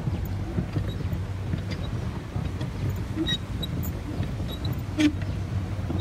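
A small motorboat's engine running steadily as a low drone, with a single sharp knock about five seconds in.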